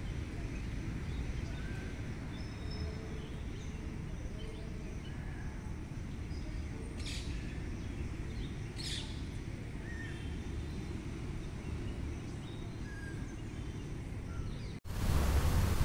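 Park ambience: scattered short bird chirps over a steady low background rumble, with two brief sharper high calls about seven and nine seconds in.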